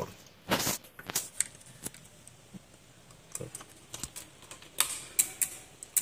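Relay inside a faulty Wi-Fi smart switch module clicking irregularly, a sharp click every half second or so, as it keeps switching on and off: the fault behind the connected light blinking.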